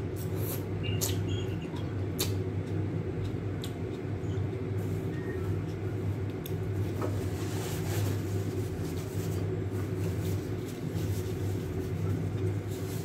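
Noodle soup being eaten with chopsticks: a few slurps and small clicks of utensils and chewing, most in the first couple of seconds, over a steady low hum.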